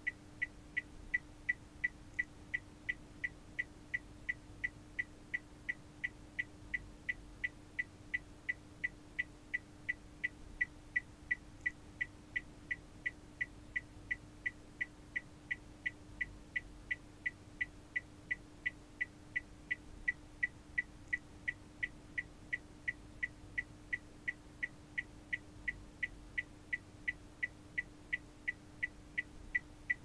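Car turn-signal indicator ticking at an even pace, about three crisp clicks a second, over a faint steady hum.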